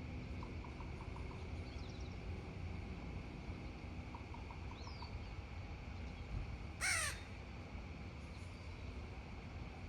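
A single loud bird call, about a third of a second long, comes a little before seven seconds in, over a steady low outdoor background rumble. Faint runs of about five quick pips come twice in the first half.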